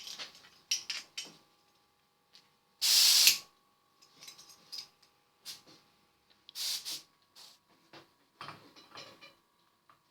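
A short burst of compressed air hissing out, about half a second long and about three seconds in, among scattered clicks and light handling knocks, over a faint steady hum.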